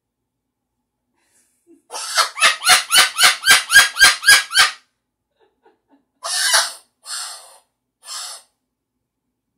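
Cockatoo calling: a fast run of about ten loud squawks, about four a second, then after a pause three harsher, rougher screeches.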